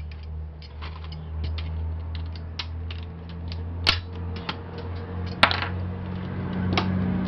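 Pliers prying at a DVD-ROM drive's circuit board and housing: a run of small metal and plastic clicks and ticks, with two sharper snaps about four and five and a half seconds in. A steady low hum runs underneath.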